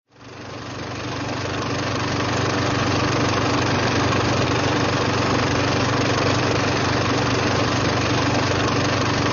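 Steady low hum with an even hiss over it, fading in over the first two seconds and then holding level.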